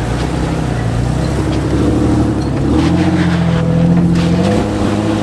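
4x4 truck engine revving under load as it climbs a rock ledge: the pitch rises about two and a half seconds in, holds, and falls back near the end.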